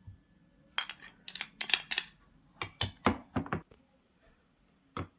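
A metal spoon clinking against a dish. A quick run of sharp, ringing clinks comes about a second in, followed by a few duller knocks and one last knock near the end.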